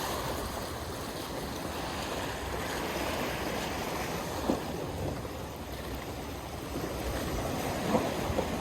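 Wind buffeting the microphone over water lapping, a steady rush with a rumble at the bottom, broken by two brief louder sounds about four and a half and eight seconds in.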